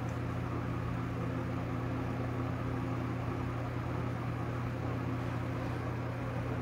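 Steady low hum with an even hiss over it, unchanging throughout: room background noise from a running machine.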